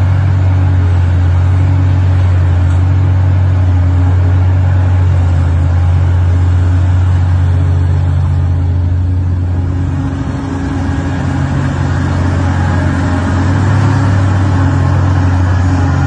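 Large Komatsu mining excavator's engine running steadily under load as it digs and swings a full bucket: a deep, steady drone that eases briefly about ten seconds in.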